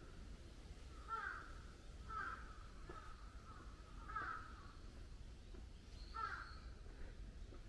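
A crow cawing four times, short harsh calls spaced a second or two apart, over a faint steady outdoor background.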